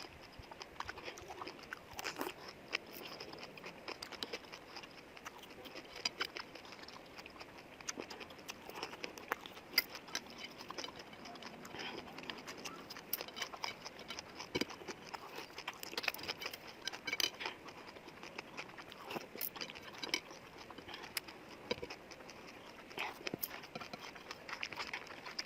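A person eating close to the microphone: chewing with many small, irregular mouth clicks and smacks.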